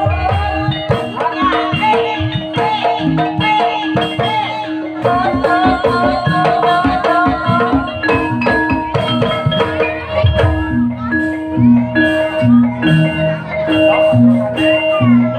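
Javanese gamelan music for ebeg: struck metal or bamboo keyed instruments ringing out interlocking notes over a kendang hand drum. Deeper key notes come to the fore about two-thirds of the way through.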